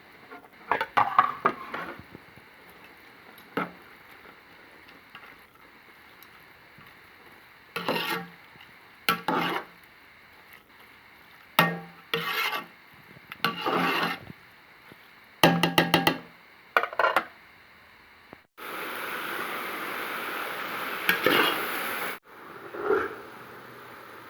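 A spoon scraping and stirring in a cooking pot in short strokes of a second or two, then a steady hiss lasting about three and a half seconds near the end.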